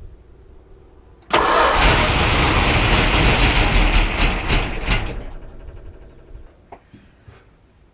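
1973 Plymouth Cuda's 340 small-block V8 firing on starter fluid: it catches about a second in, runs loudly for about four seconds, then dies away. The engine won't stay running.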